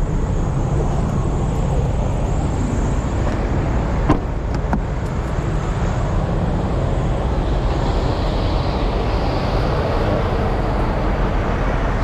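Steady low rumble of idling diesel truck engines, with a single sharp thump about four seconds in.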